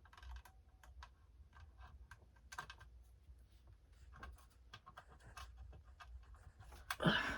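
Faint, irregular light clicks and taps, with a louder rustle near the end.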